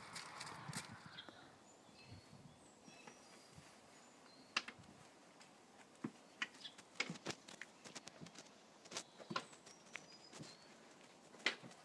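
Irregular sharp taps of a walking cane and rubber-booted footsteps on concrete steps, with birds chirping faintly.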